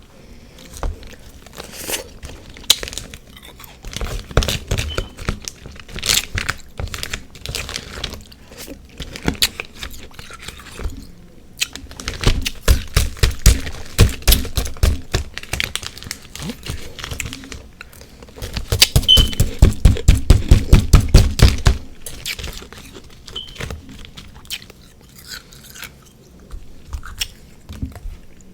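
Close-miked crunching and chewing of refrozen freezer frost ice, mixed with powdered sugar and whipped cream. Two runs of quick, loud chomps, about five a second, come near the middle and again later.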